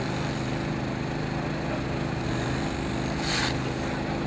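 A small engine running steadily at an even speed, with a short hiss about three seconds in.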